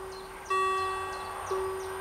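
Level-crossing warning bells striking about once a second, each strike ringing on and fading before the next. They signal that a train is approaching.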